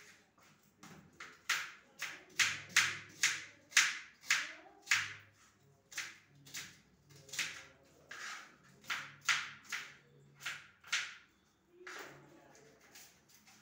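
Kitchen knife chopping red onion on a cutting board: a steady run of sharp knocks, about two a second, with a short pause near the end.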